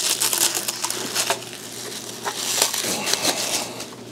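Clear plastic packaging bag crinkling and crackling as it is handled and pulled off a vacuum part, dense at first and thinning out toward the end.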